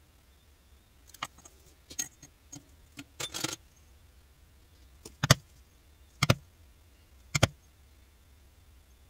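A mallet striking a multi-pronged pricking iron through leather three times, about a second apart, each a sharp knock with a low thud. Before the blows, light metallic clicks and taps as the iron is set in place.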